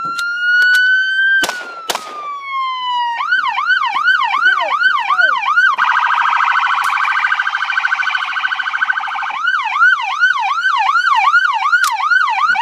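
Patrol car's electronic siren cycling through its tones: a slow wail, then a fast yelp, a rapid warble in the middle, the yelp again, and a wail rising again near the end. Two gunshots crack over it about a second and a half in.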